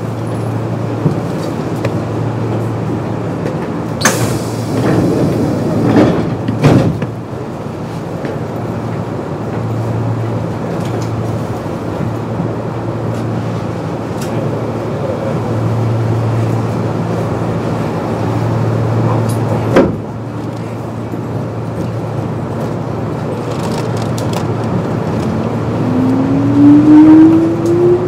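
Kintetsu 8600 series train at a station stop: the doors close with a rush of air and a couple of thuds a few seconds in, over a steady low hum. Near the end the field-phase-controlled traction motors start up, their whine rising in pitch as the train pulls away.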